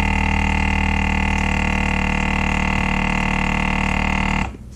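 Countertop food vacuum sealer's pump motor running with a steady hum as it pulls the air out of the bag, then cutting off abruptly near the end once the bag is drawn tight.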